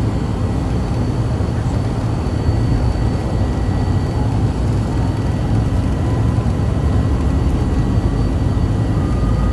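Private jet's engines heard from inside the cabin as it moves along the runway: a steady deep rumble with a thin, high turbine whine. A faint whine rises slowly in pitch over the second half.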